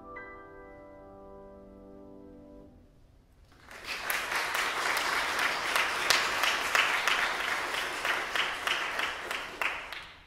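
Grand piano holding the last chord of the piece, with a high note struck at the start, dying away over about three seconds. Audience applause then breaks out about three and a half seconds in and fades near the end.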